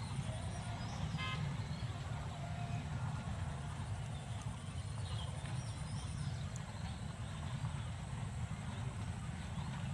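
Small birds chirping over a steady low rumble that does not fade.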